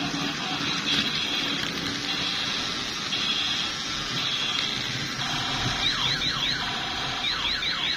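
Battery-powered toy playing electronic siren-like sound effects: steady high beeping tones that switch on and off, then two runs of quick sweeping zaps, about six seconds in and again near the end.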